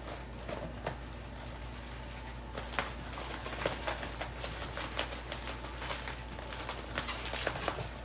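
Hands opening a cardboard box and handling the plastic-wrapped items inside: an irregular string of light taps, scrapes and crinkles of cardboard and plastic packaging.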